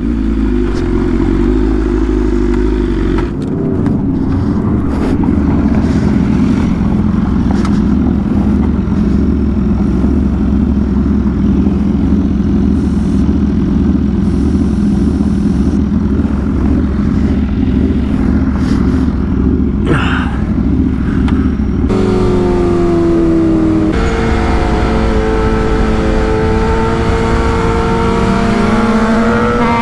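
BMW S1000RR's inline-four engine running steadily under way. About two-thirds through it pulls harder, its pitch rising, with a brief break like an upshift about two seconds later before it climbs again.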